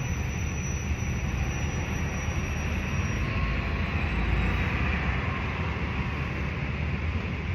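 Road traffic passing: a steady wash of vehicle noise with a deep rumble, swelling slightly about halfway through.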